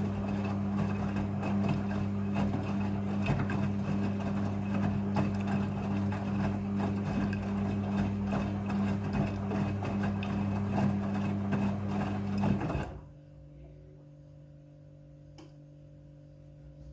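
Midea front-loading washing machine running on a rinse of bedsheets and a blanket: a steady motor hum with busy drum and water noise. It cuts off abruptly about thirteen seconds in, leaving a faint steady hum.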